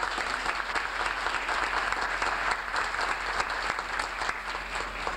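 Audience applauding, a dense patter of many hands clapping that starts to taper off near the end.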